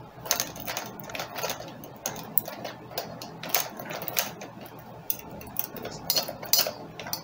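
Irregular plastic clicks and knocks from a Buzz Lightyear action figure as its arms are moved and posed by hand.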